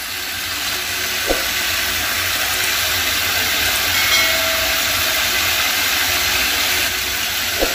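Kitchen tap spraying hot water onto a stainless steel sink bowl and down the drain: a steady hiss and splash of running water, flushing grease out of a partly clogged drain pipe.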